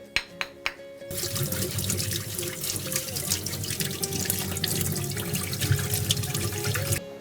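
Water running from a tap and splashing, starting abruptly about a second in and cutting off near the end, after a few light clicks. Background music plays throughout.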